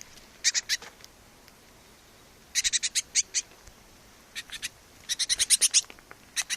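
A fledgling bird chirping for food: runs of short, high chirps, the longest and quickest run coming near the end.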